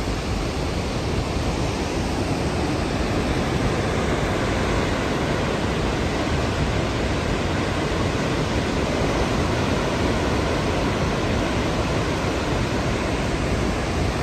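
Victoria Falls, a huge waterfall, making a steady, unbroken rushing noise of falling water.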